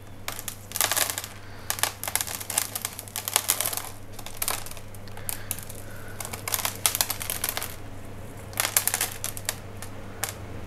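Dry orchid roots and gritty potting medium crackling and clicking as a root ball is worked loose by hand from a plastic pot, in irregular bunches of sharp little clicks and rustles.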